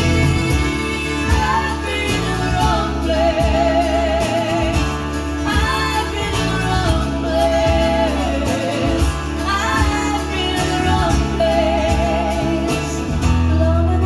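Recorded song played back through Tannoy XT6F loudspeakers: a woman singing long held notes with a wide vibrato over guitar and a steady deep bass line.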